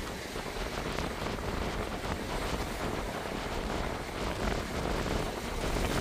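Strong wind buffeting the microphone in gusts, over the wash of choppy water and breaking waves.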